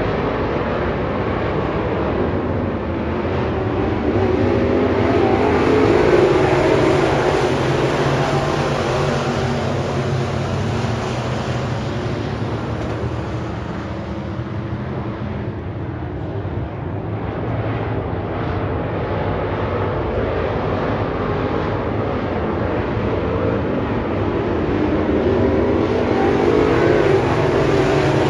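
A pack of dirt-track race cars running flat out around the oval. The engine noise is loud and continuous, swelling as the pack passes about five seconds in and again near the end.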